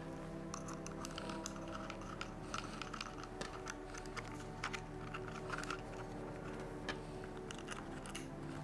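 Irregular light clicks and taps of small plastic and rubber parts being handled: spacers picked up off a wooden tabletop and a polymer holster fitted against a belt-mounted adapter. Steady background music runs underneath.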